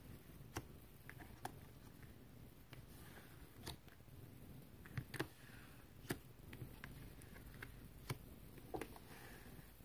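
Faint handling of tarot cards being slid and laid down on a table: light, irregular taps with a couple of soft brushing swishes.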